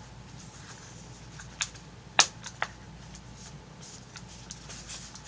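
A few sharp plastic clicks and taps as the pieces of a two-piece phone case are snapped together around a phone, the loudest about two seconds in.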